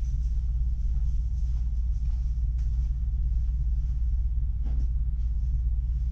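A steady low hum, with a couple of faint short taps about two and a half seconds and nearly five seconds in.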